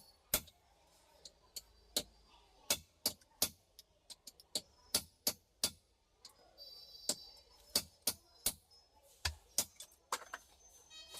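A series of sharp clicks or light taps, irregularly spaced, often coming in quick runs of three.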